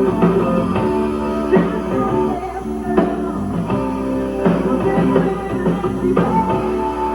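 Rock band playing with guitar and drum kit, steady and loud, with regular drum hits through the sustained guitar notes.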